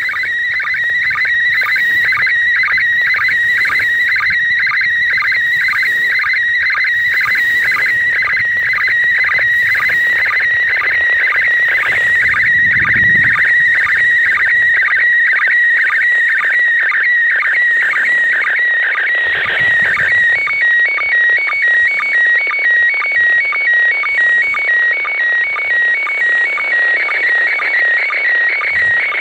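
Slow-scan TV (SSTV) image signal from the International Space Station, received clean and loud on an Ailunce handheld radio and played through its speaker: a warbling tone around 2 kHz that repeats about twice a second, one picture line after another. About two-thirds of the way through it changes to a slower, even alternation between two pitches.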